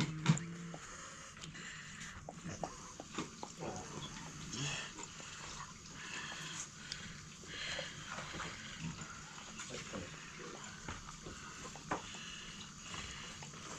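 White Shiba Inu eating wild boar meat from a stainless steel bowl: irregular chewing with many small clicks against the metal. A brief low sound right at the start.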